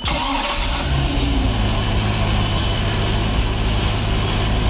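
Mercruiser 5.7 L small-block Chevy V8 marine engine hot-starting: it catches at once and settles into a steady idle. A faint steady high tone sounds above the engine.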